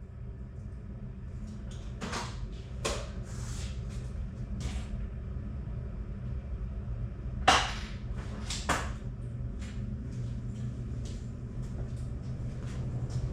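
Hand tools and parts being handled during dirt-bike work: scattered clicks and clinks, with two sharper knocks about seven and a half and nine seconds in, over a steady low hum.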